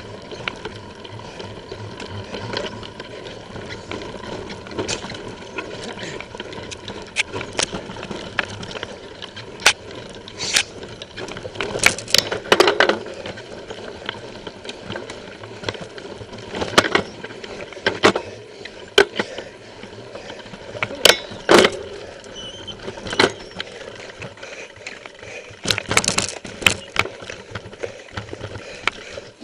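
MSC mountain bike ridden fast over a rough dirt singletrack, picked up by a camera on the handlebars: a steady rattle of the bike with irregular sharp knocks and clatter from bumps, coming in several louder clusters.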